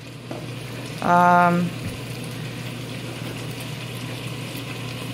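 Pot of chicken broth bubbling steadily on the stove, with a short hummed "mmm" from the cook about a second in.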